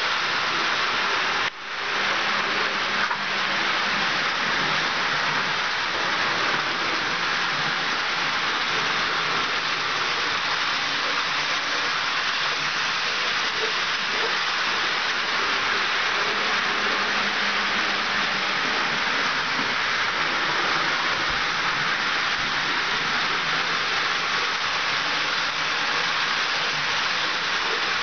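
HO-scale model freight train rolling past on metal track: a steady hissing rumble of wheels on the rails, dipping briefly about a second and a half in.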